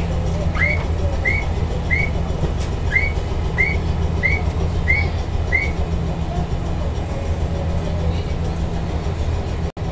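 Stationary Kyoto Randen tram's steady low hum. Eight short, high whistled chirps come about every two-thirds of a second in the first half. The sound cuts out for an instant near the end.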